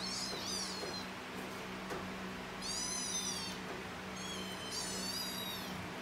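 Kittens mewing: three high-pitched mews, each about a second long, with a steady low hum underneath.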